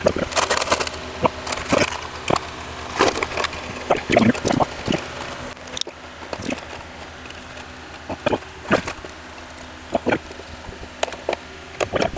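Hand tools clicking, clinking and scraping against rusted metal parts as a screwdriver works loose stubborn rusted hardware on a gas fire pit's burner assembly; irregular taps and scrapes.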